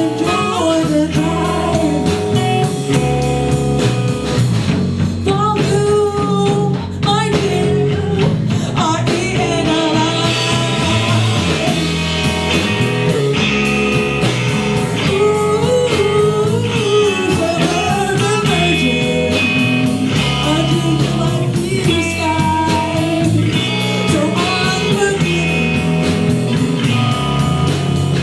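Live rock band playing a song: electric guitar and drums keeping a steady beat, with a singer's voice over them.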